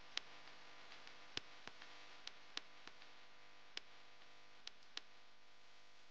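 Near silence: a faint steady hiss broken by about ten sharp, short clicks at irregular intervals.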